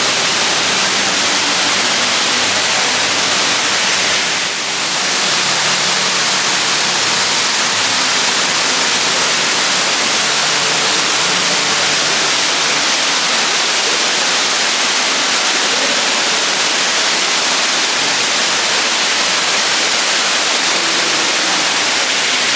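Ruby Falls, the underground waterfall, pouring into its pool: a loud, steady rush of falling water with a brief dip about four and a half seconds in.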